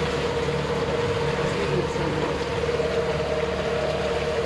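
Motorboat engine running steadily at constant speed, a continuous drone with a steady tone that holds one pitch.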